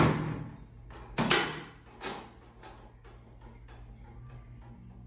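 Chiropractic thrusts on the lower back of a patient lying on a sectioned chiropractic table: a sharp knock right at the start, a quick pair a little over a second in, and a weaker one about two seconds in, each ringing out briefly.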